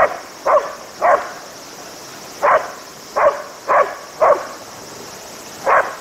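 A dog barking in three short runs of sharp barks, about two a second, about eight in all.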